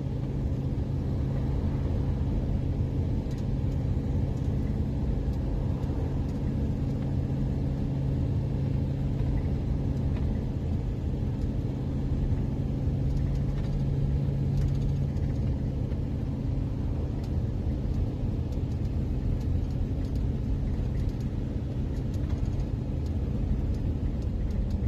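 Steady engine and road rumble inside a box van's cab while driving, with a low engine drone that eases off about fifteen seconds in.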